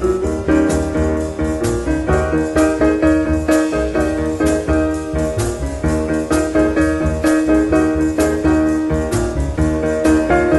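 Jazz piano trio recording: piano playing over bass and drums with a steady beat.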